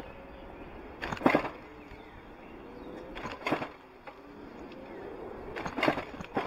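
500 W geared-motor electric mountain bike rolling along a paved path. There is a faint whine from the motor, and three short clattering rattles come about two seconds apart.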